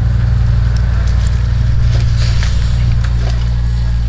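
Steady low hum of a running engine or motor, one of its low tones shifting slightly about three seconds in.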